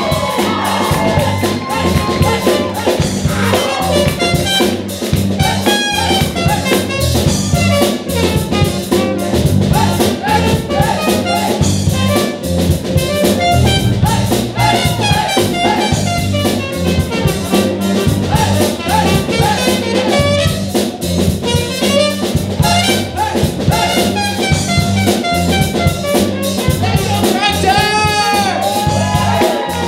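Live band playing a brass-led jazz number: trumpet over drum kit and electric guitars, with saxophone and trombone in the horn section. Bending horn notes near the end.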